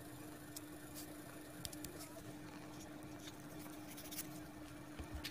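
Faint clicks and light rustles of cardboard strips and craft sticks being handled, over a steady low hum.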